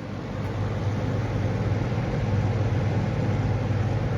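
Lasko 3723 box fan running: a steady rush of air over a low motor hum, growing louder over about the first second and then holding steady. Its blades are well balanced, so it runs without shaking.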